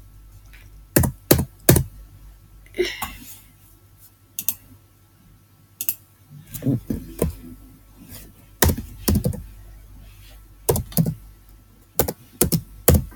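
Computer keyboard being typed on: irregular key clicks, some single and some in quick runs of two to four, with pauses between.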